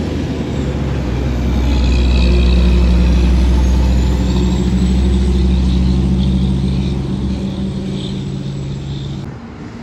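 Tri-axle dump truck's diesel engine drones steadily as the truck drives past and away. The drone is loudest a couple of seconds in and fades toward the end, with a faint rising whistle over it early on.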